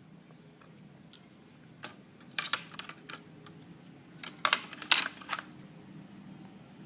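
Scattered sharp clicks and taps, a few about two and a half seconds in and a louder cluster near five seconds.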